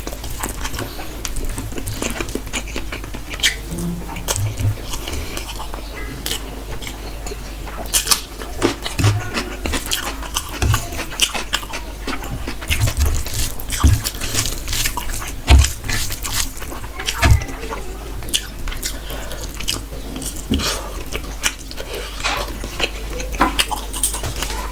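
Close-up eating sounds from someone eating chicken bhuna curry with rice: irregular wet chewing smacks and clicks, over a steady low hum.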